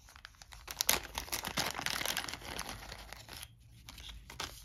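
Thin plastic bag crinkling as hands open it and take out small game tokens, a dense run of crackles lasting about two and a half seconds, then fainter rustling near the end.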